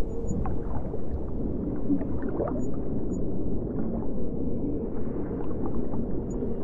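Underwater ambience: a continuous low, muffled rumble with gurgling and wavering, whale-like tones gliding up and down.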